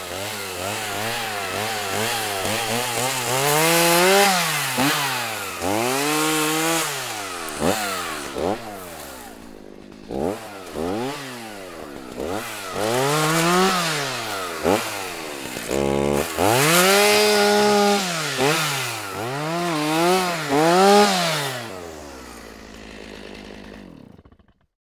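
Chainsaw cutting brush and a small tree, the engine revving up and falling back again and again as the throttle is worked, in quick blips and several longer revs into the wood. It drops back to idle and cuts out near the end.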